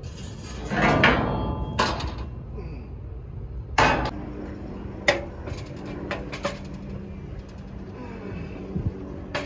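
A long stick of 3/16 steel angle iron clanking and scraping against steel as it is pushed overhead and shifted: a ringing metal scrape about a second in, then sharp clanks about four and five seconds in, and lighter knocks after.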